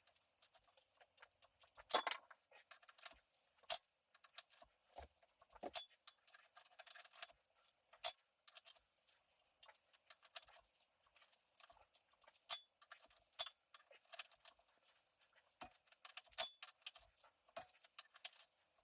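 Metal hand tools and bolts clinking and tapping against metal: irregular sharp clicks, some with a brief metallic ring.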